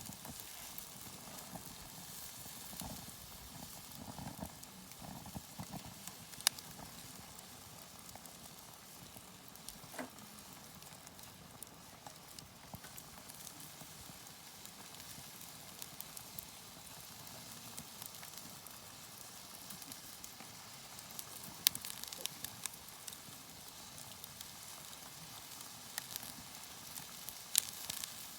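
Wood campfire crackling, with sharp pops every few seconds over a steady soft hiss.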